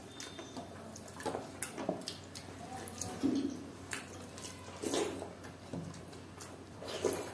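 Wet squelching and dripping from hands mashing and mixing panta bhat (cooked rice soaked in water) in steel plates, with scattered small clicks and mouth sounds of eating.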